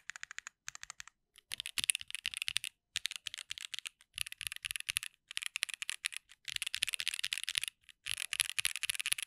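Vega mechanical keyboard by ai03 with stock SWK Neon switches, a polycarbonate plate, no foam and GMK keycaps, being typed on: a few separate keystrokes at first, then fast typing in runs of about a second with short pauses between them.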